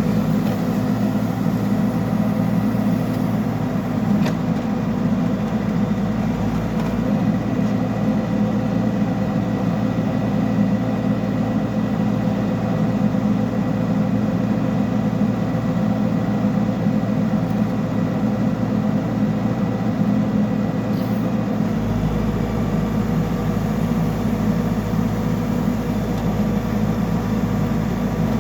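Backhoe loader's diesel engine running steadily under work, a continuous low drone; its deepest rumble grows stronger about three quarters of the way through.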